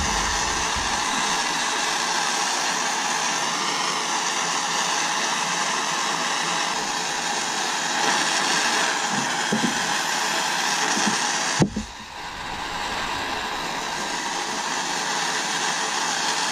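A hand-held gas torch flame hissing steadily while it heats a buckle to flow hard silver solder. About two-thirds of the way through there is a sharp click, the hiss drops away, then it slowly builds back up.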